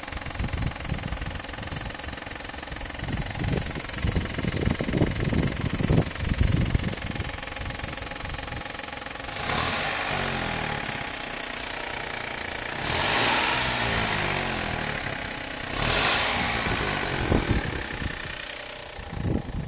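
Corsa B car engine idling with an irregular low pulsing, then revved three times, about ten, thirteen and sixteen seconds in. The owner is showing a weird engine sound that comes with poor acceleration.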